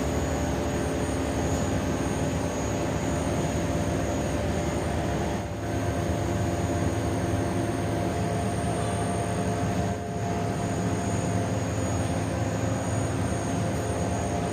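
Steady drone of pipe-making factory machinery: a constant hum carrying several steady tones over a wide hiss, dipping briefly twice.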